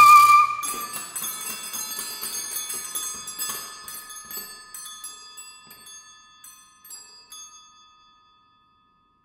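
A soprano's held high note ends about half a second in, then a small tuned metal percussion instrument is struck many times in quick succession, its bell-like notes ringing on and fading away to silence.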